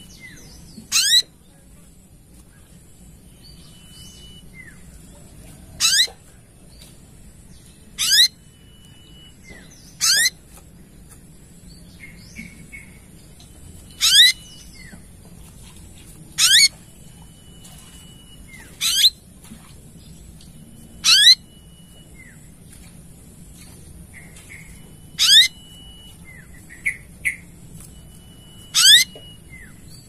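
Olive-backed sunbird singing: about ten short, loud bursts of fast sweeping high notes, two to four seconds apart, with softer chirps and a thin held whistle between some bursts.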